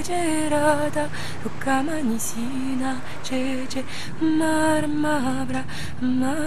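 A woman singing a slow melody in held notes with sliding ornaments, over a low steady drone.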